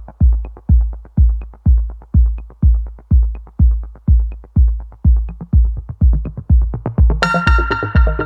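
Electronic dance music: a steady four-on-the-floor kick drum at about two beats a second, with faint high ticks between. A bright synthesizer chord comes in about seven seconds in.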